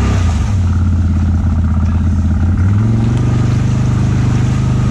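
Side-by-side UTV engine running under throttle while the machine sits stuck in thick mud and is pushed and rocked. The engine holds a steady pitch, then revs up to a higher steady pitch about three seconds in.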